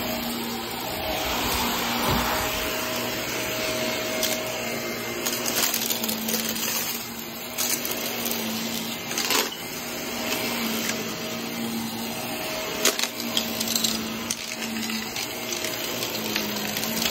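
Upright vacuum cleaner running and being pushed over carpet: a steady motor hum and rush of suction, with sharp clicks now and then.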